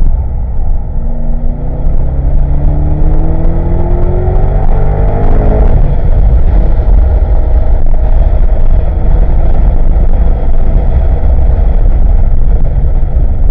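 The 7.0-litre LS7 V8 of a C6 Corvette Z06, heard from inside the cabin at full throttle. It pulls hard in second gear, its pitch climbing for about five seconds, then runs at a steady high pitch in third gear for the rest of the stretch.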